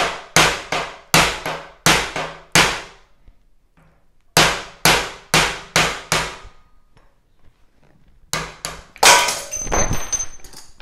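Steel hammer striking a small pin punch to drive a part out of a C-clamp held in a bench vise: sharp metallic clangs, about two to three a second, in three runs with short pauses between. Near the end a louder metallic clatter leaves a high ringing note.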